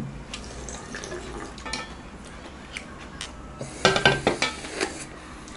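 A person slurping cold soybean-milk noodle broth (kongguksu) from a glass bowl: light clicks and sips at first, then a loud burst of slurping about four seconds in.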